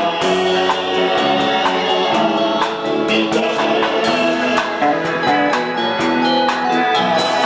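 A band playing a song: held chords over a drum kit keeping a steady beat.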